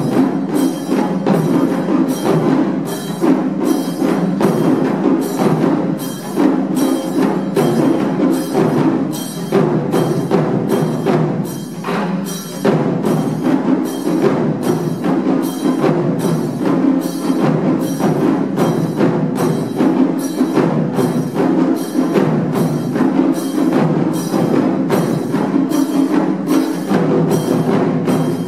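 Japanese taiko ensemble playing: several large barrel drums and small drums on wooden stands struck with wooden sticks in a loud, driving rhythm. Sharp strikes land on a steady beat a little more than once a second.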